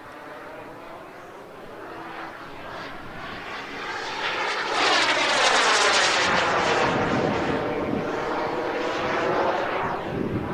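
Model jet turbine of a large radio-controlled English Electric Lightning (B300F, 320 N thrust) making a fast pass. The whine and rush build, are loudest about five to seven seconds in, and drop in pitch as it goes by.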